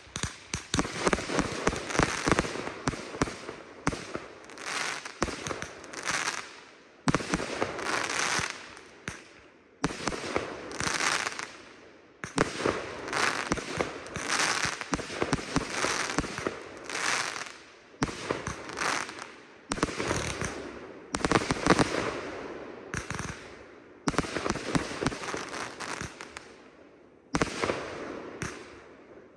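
Consumer (1.4G) aerial fireworks going off one after another: sharp launch and burst bangs, each clump trailing into crackling, with short lulls every second or two.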